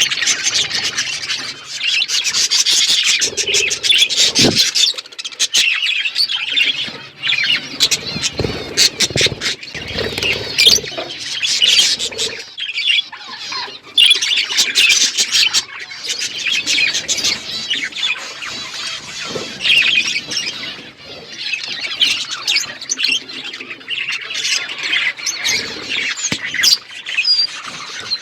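A flock of budgerigars chirping and chattering, many short overlapping calls with occasional squawks, with brief bursts of wing flutter.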